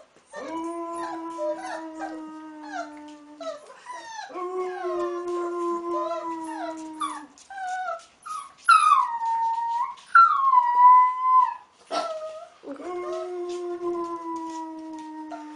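A man howls in long, steady low notes while a young wolf pup howls along higher. Twice in the middle, about 8 and 10 seconds in, the pup gives louder, high howls that slide down in pitch.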